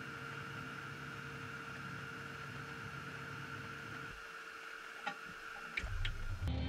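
Steady electrical hum with several fixed faint tones from the cockpit systems of a Beechcraft Premier 1A, its engines not yet running. About five to six seconds in come a few sharp clicks, then a deeper hum starts up.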